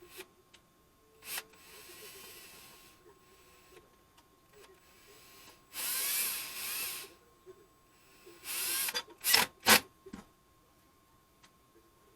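Cordless drill driving screws in a few short bursts, the longest about six seconds in, with the motor's pitch rising and falling. Two sharp knocks about nine and a half seconds in are the loudest sounds.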